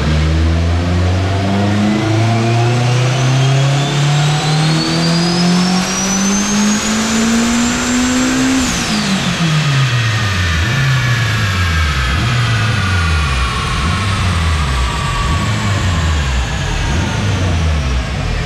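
Turbocharged Honda K20 four-cylinder in a Civic hatchback making a full-throttle pull on a chassis dyno: the engine note climbs steadily through the revs for about eight seconds with a high whine rising alongside it, then the throttle is lifted and the revs drop sharply, falling away in a series of short swoops as the car coasts down on the rollers.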